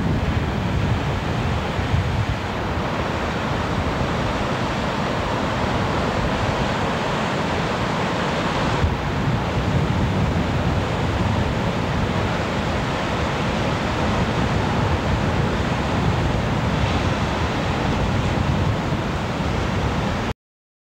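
Ocean surf breaking and washing in, with wind buffeting the camcorder microphone as a low rumble; it cuts off suddenly near the end.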